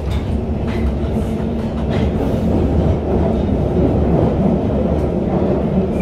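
A 1972 Mk 2 Stock London Underground train running through a deep tube tunnel, heard from inside the carriage. A steady low rumble of wheels and running gear, with a few faint clicks, grows slightly louder as it goes.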